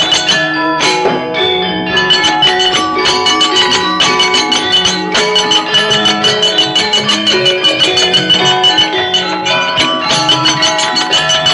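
Javanese gamelan ensemble playing wayang accompaniment: metal-keyed percussion struck in a fast, even rhythm, with lower ringing tones beneath.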